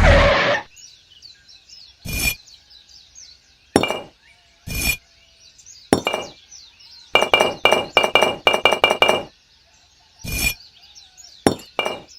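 Sharp, ringing clinks of small hard objects being knocked together. There are single strikes every second or so, a quick run of about a dozen in the middle, then a few more near the end, with faint bird chirps behind.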